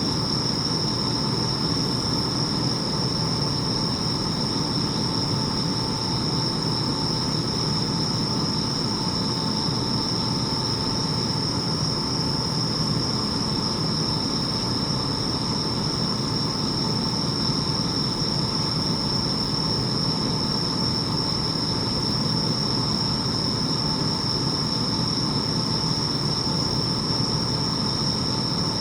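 Bell crickets (suzumushi) singing, a steady high ringing chorus, over a constant low rumble.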